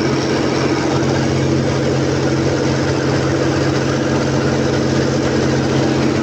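Large diesel generator engine running steadily at constant speed, a loud even drone with no change in pitch.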